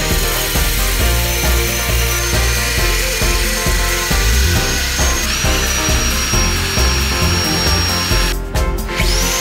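Background music with a steady beat over the high whine of a rotary power sander sanding a wooden bowl as it turns on a lathe. The whine steps in pitch a couple of times and drops out briefly near the end.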